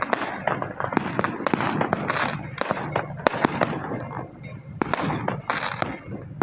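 A string of firecrackers going off in rapid, irregular pops and cracks.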